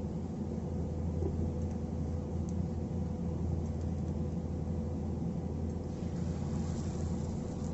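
Steady low mechanical hum, like a fan or motor running, with a faint hiss coming in about six seconds in.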